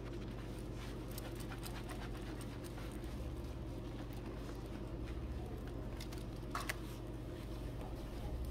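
Hands scrubbing and kneading thick shampoo lather through hair, a wet squishing and crackling of foam, as a relaxer is shampooed out. A steady low hum runs underneath, and there is one sharper crackle about six and a half seconds in.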